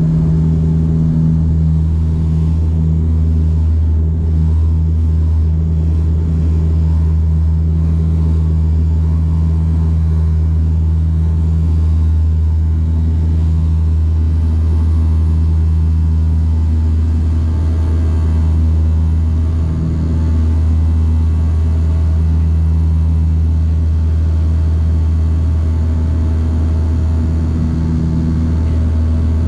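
Steady drone of a turboprop airliner's engines and propellers heard from inside the cabin during takeoff and climb-out: a deep, even hum with a few steady tones above it.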